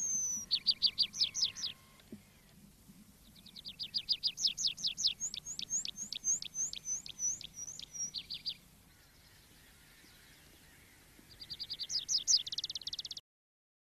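A songbird singing three phrases of rapid, repeated high notes: a short phrase near the start, a long one in the middle that speeds up and climbs in pitch, and another fast phrase near the end. The sound cuts off suddenly just before the end.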